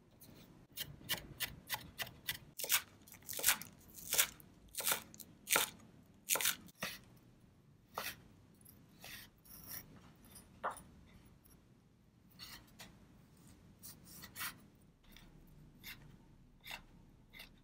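Kitchen knife chopping salted fish on a bamboo cutting board: sharp, irregular knocks of the blade on the wood, about two a second at first and sparser from about seven seconds in.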